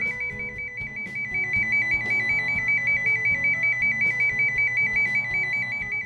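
Jonard TEP-200 tone tracing probe's speaker sounding the tracer tone it picks up from the cable: a steady high-pitched warble, rapidly alternating between two close pitches, showing the probe has found the toned cable.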